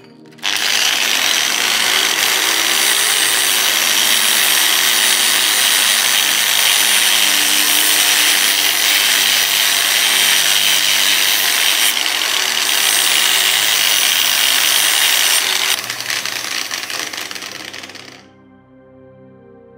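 Angle grinder running with a thin cutting disc pressed against a lamp's metal burner tube, cutting a slot in it. The grinder starts about half a second in, cuts steadily for about fifteen seconds, then winds down over the last couple of seconds.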